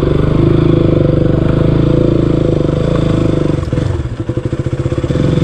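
Motorcycle engine running under way on a rough dirt track. About four seconds in the throttle eases off and the note drops to slower, separate firing pulses, then picks up again near the end.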